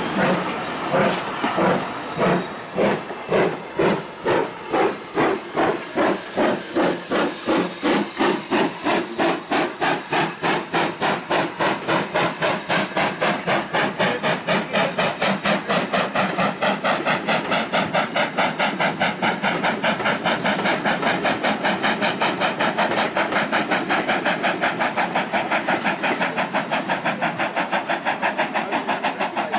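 Steam locomotive working hard as it pulls away, its exhaust beats quickening steadily from about two a second to about five a second as it gathers speed.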